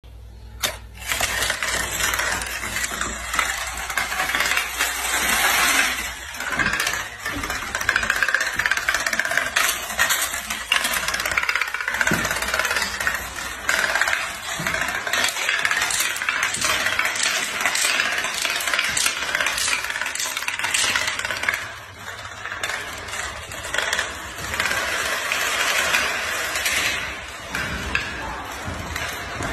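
A long domino chain of standing playing cards toppling one after another on a tile floor: a dense, continuous rapid clatter of card edges slapping down, starting abruptly a little under a second in after the first card is pushed.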